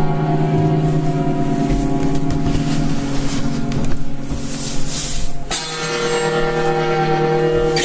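Instrumental music with held, sustained chords, moving to a new chord about five and a half seconds in.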